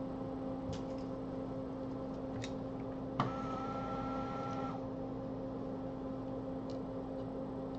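Steady hum of a bench fume extractor fan, with a few faint light clicks. A bit past three seconds a click is followed by a steady tone that lasts about a second and a half.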